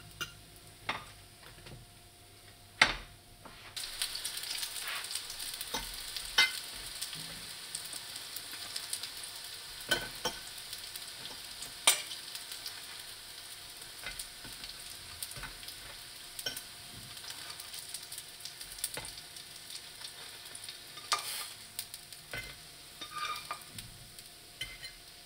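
Breaded calamari rings frying in hot oil in a nonstick pan. A steady sizzle starts about four seconds in and lasts almost to the end, with sharp clicks of a metal spoon against the pan and plates throughout.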